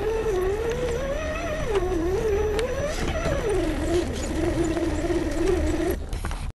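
Electric motor and gear whine of an Axial SCX10 RC rock crawler, its pitch rising and falling with the throttle, then holding steadier before cutting off near the end.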